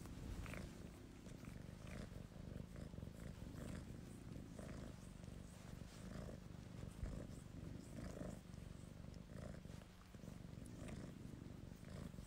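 Domestic cat purring quietly, a low steady rumble, with faint small clicks of its tongue licking a hand.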